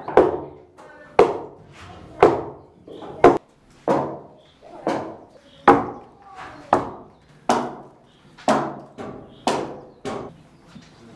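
An axe chopping into wood: about a dozen blows at a steady pace of roughly one a second, each a sudden knock that dies away quickly.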